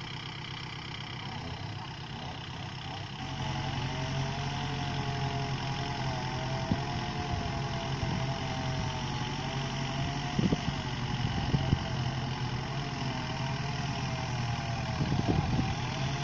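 Diesel tractor engine running steadily. About three seconds in it gets louder, with its pitch wavering as it works, and a few short knocks sound over it later on.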